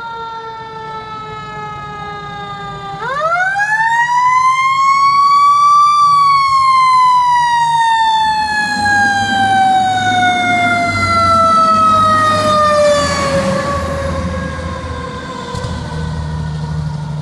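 Fire engine siren. Its pitch slides slowly down, then about three seconds in rises sharply to a high peak and slides slowly down again as the truck comes past. The truck's engine rumbles underneath in the second half.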